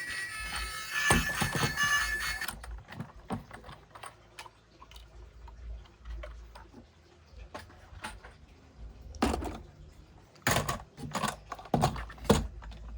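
Irregular small clicks and knocks of plastic toys and their packaging being handled, with louder clusters near the end. Background music plays for the first two and a half seconds, then stops.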